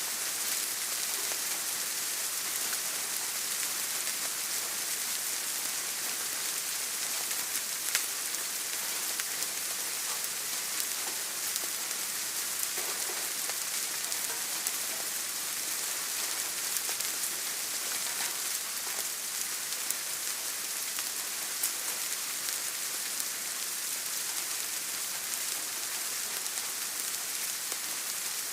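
Steady rain falling, an even hiss with scattered sharper drop ticks; the loudest tick comes about eight seconds in.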